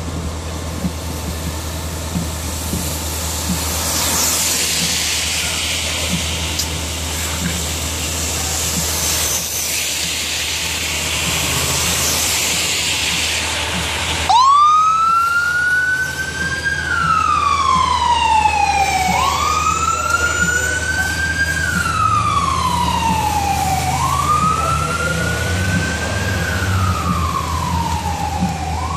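A steady engine hum and hiss, then about halfway through a fire engine's electronic siren starts wailing. Each cycle climbs quickly and slides slowly back down, about every five seconds, three times and into a fourth.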